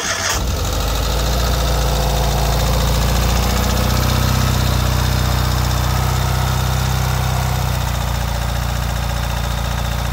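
2023 Ural sidecar motorcycle's air-cooled boxer twin running at a steady high idle, just after a cold start.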